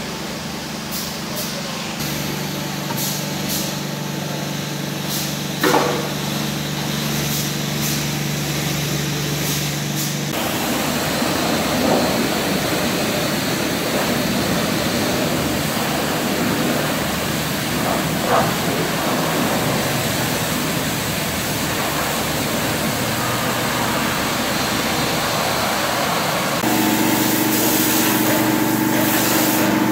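High-pressure water spray washing down a tracked excavator, a steady hiss of water with a continuous engine hum underneath. The spray grows denser about a third of the way in, and the hum changes pitch near the end.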